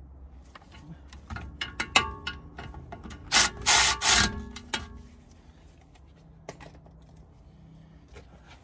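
Milwaukee cordless electric ratchet tightening a BMW brake caliper carrier bolt: the ratchet runs in two short bursts about three and a half seconds in, between clicks and knocks of metal on metal.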